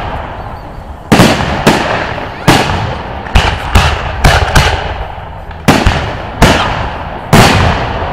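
Aerial firework shells bursting overhead in quick succession, about ten sharp bangs at uneven intervals, each dying away over a fraction of a second.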